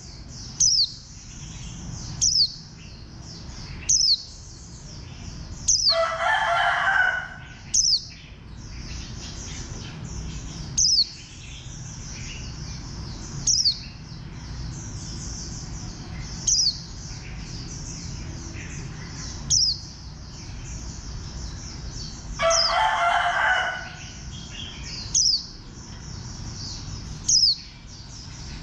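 A white-eye (vành khuyên) giving short, sharp, high chirps that fall in pitch, one every couple of seconds. A rooster crows twice in the background, about six seconds in and again near the 22-second mark.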